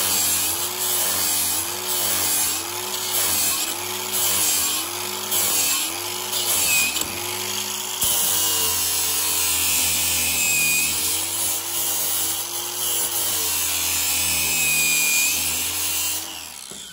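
A motor-driven grinder on a mower-blade sharpening jig grinding the edge of a steel mower blade. Its pitch dips about once a second with each stroke across the blade for the first half, then runs steadier, and the motor stops shortly before the end.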